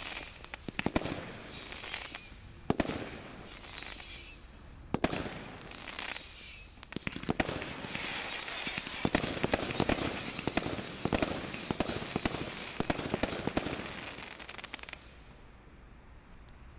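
Napalm Category 3 combination Roman candle firing: sharp shots about once a second, several trailed by a high wavering whistle. From about eight seconds in the shots quicken over dense crackling, and the firing stops abruptly about fifteen seconds in.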